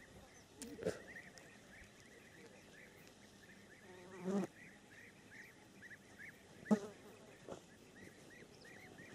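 Continuous short chirping calls from small wildlife, several a second. A few brief louder knocks come about a second in, around four seconds in, and near seven seconds in.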